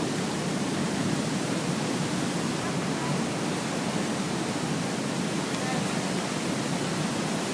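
A large waterfall's falling water making a steady, even rush.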